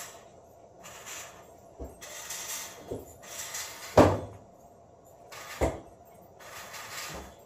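Short hissing puffs of air, each lasting under a second, alternating with separate sharp knocks; the loudest knock comes about four seconds in.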